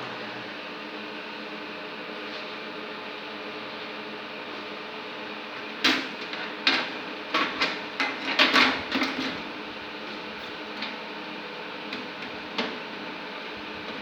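Steady mechanical hum from a running machine, with a run of sharp clicks and knocks from about six to nine seconds in, and a few single clicks after, as hard parts are handled.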